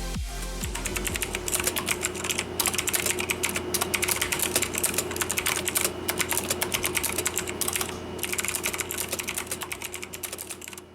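Fast typing on a Velocifire VM90 mechanical keyboard with clicky Kailh Blue switches: a dense, continuous run of sharp keystroke clicks, easing briefly about eight seconds in.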